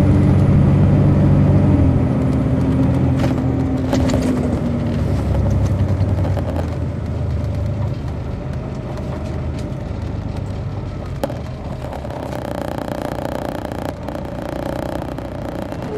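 Detroit Diesel Series 60 diesel engine of a 2003 MCI D4500 coach bus, heard from inside the bus. It runs strongly at first, then its note drops about two seconds in and fades as the bus eases off, leaving a lower, quieter running sound with scattered cabin rattles.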